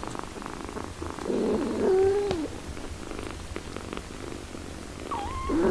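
Nursing mother cat purring steadily, with two short meows, one about a second and a half in and another near the end.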